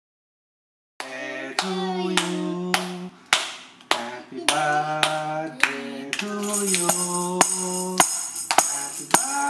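Silent for about the first second, then a song is sung with hands clapping to a steady beat. Tambourine jingles join in about six seconds in.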